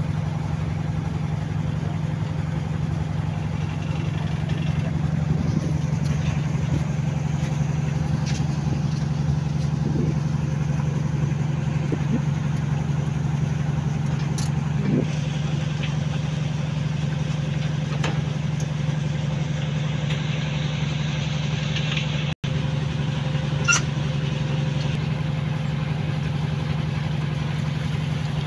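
A river ferry's engine running steadily, a low even drone. A few short clicks sound over it, one sharper near the end.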